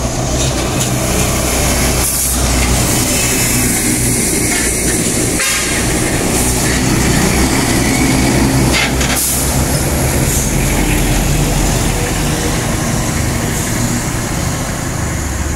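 Heavy diesel cargo trucks passing close by: a steady low engine drone with tyre and road noise.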